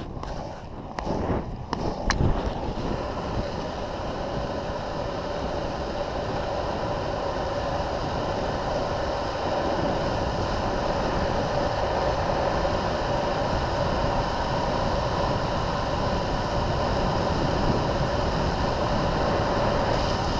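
Longboard wheels rolling fast on asphalt with wind rushing over a helmet-mounted camera's microphone: a steady rush with a hum, growing louder over the first several seconds as the board picks up speed and then holding. A few sharp knocks in the first two seconds.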